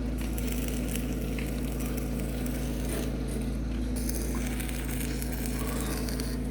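Arc welding: a steady machine hum with the crackling sizzle of the welding arc.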